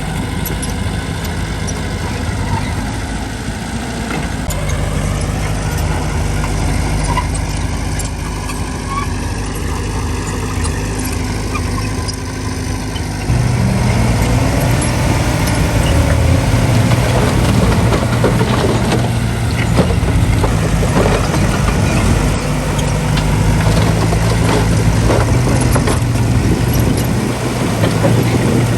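Heavy diesel engine of earthmoving machinery running steadily. About halfway through it steps up sharply in loudness and revs under load, with clattering and knocking on top, typical of stone and soil being pushed or dumped.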